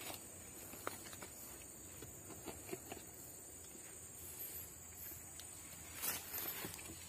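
Faint crinkling and small clicks of a thin plastic water bottle being handled and pushed onto the cut end of a forest vine, with a louder rustle about six seconds in.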